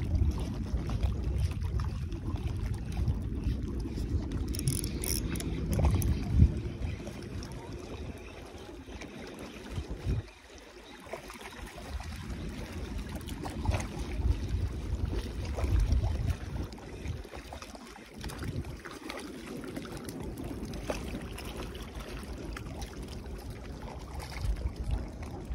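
Wind buffeting the microphone: a gusty low rumble that rises and falls, dropping away briefly about ten seconds in and again near eighteen seconds.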